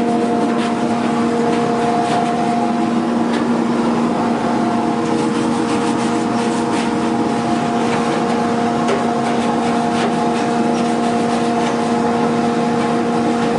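Furnace duct-cleaning vacuum running with a steady, loud hum. Scattered light clicks and knocks sound over it.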